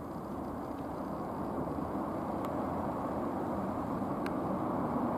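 A vehicle's steady rumble, growing slowly louder.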